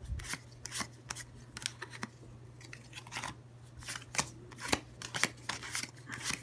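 Pokémon trading cards flipped one at a time through a handheld stack, each card sliding off with a short crisp swish or snap. The pace is uneven, with a brief lull around two seconds in.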